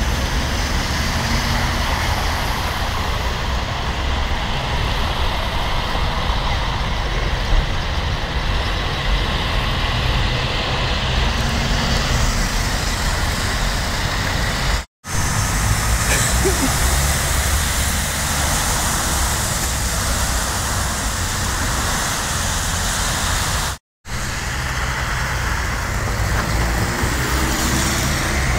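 City buses and cars passing on a wet street, engines running with a steady rumble of traffic. The sound cuts out briefly twice, about halfway through and near the end.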